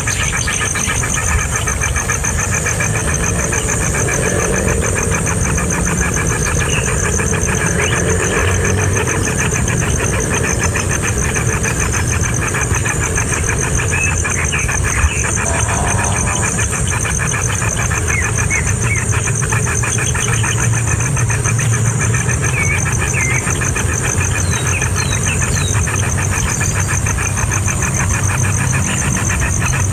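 A steady low rumble like a running motor, under a constant high-pitched buzz. Faint short cheeps of nestling birds come now and then, mostly in the second half.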